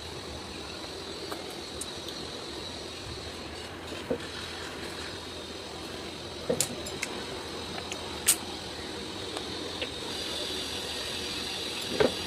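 Steady hiss with a faint high whine, broken by a few sharp clicks and knocks, the loudest about eight seconds in; the hiss grows a little louder near the end.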